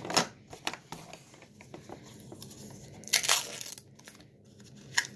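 Thin plastic wrapping crinkling and tearing as a small toy is unwrapped by hand, in short crackles and clicks, the longest and loudest rustle about three seconds in.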